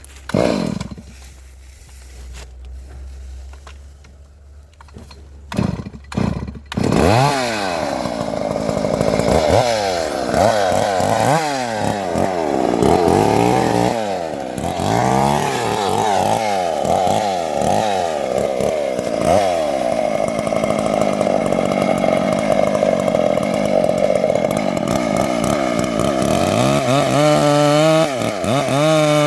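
Chainsaw engine that comes in loud about seven seconds in after a few short bursts, then revs up and down over and over, about once a second, before running more steadily near the end.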